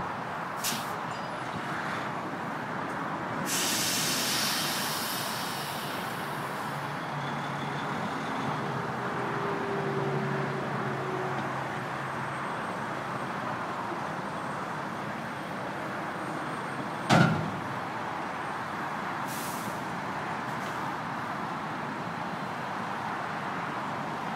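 Diesel engines of the lifting cranes running steadily, with a long hiss about four seconds in and a shorter one later. A sharp knock stands out about seventeen seconds in.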